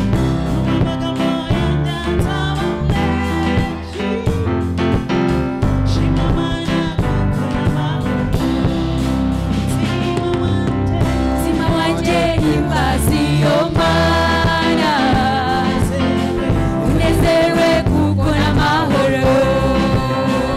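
Gospel choir singing with band accompaniment over a steady beat.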